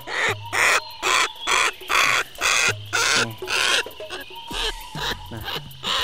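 A yellow-crested cockatoo screeching harshly over and over, about two loud screeches a second.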